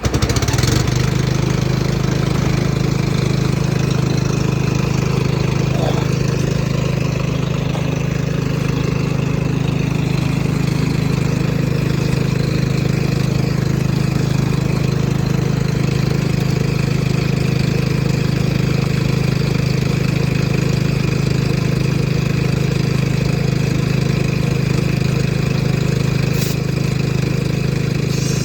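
An engine or motor starts up and runs steadily at a constant speed.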